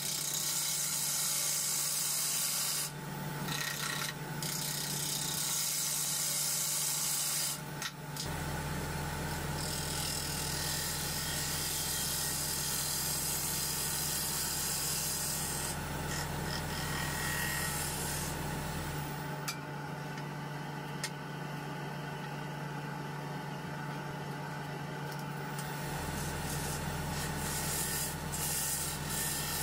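A turning tool cutting a spinning zelkova bowl blank on a wood lathe: a continuous scraping hiss as the tool shears the wood, over the steady hum of the lathe. The cutting briefly stops about three and eight seconds in, and is softer for a stretch in the second half.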